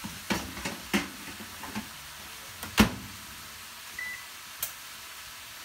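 Countertop combination microwave oven being loaded: a few light clicks and knocks from the wire grill rack going in, a louder thump a little under halfway through as the door shuts, then one short beep from the control panel about two-thirds of the way through.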